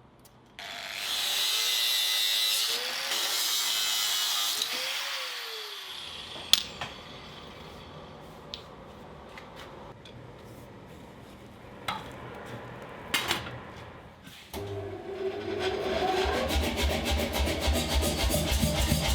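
A power tool running for about five seconds, then a few sharp metallic knocks in a metal workshop.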